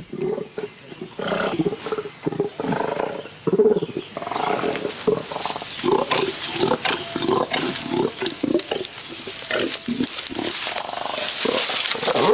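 Flanged male orangutan calling: a long run of short, deep, pitched calls, about two a second.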